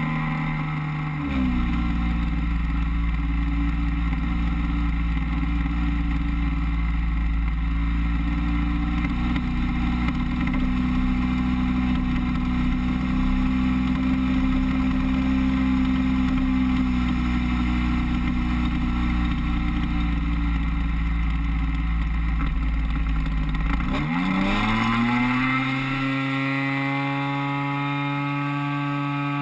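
DLE 30, a 30 cc single-cylinder two-stroke petrol engine, driving an RC Beaver floatplane in flight: it runs steadily throttled back through a descent, its pitch dropping slightly about a second in, then revs up with a sharply rising pitch a little over three-quarters of the way through and holds a higher steady speed.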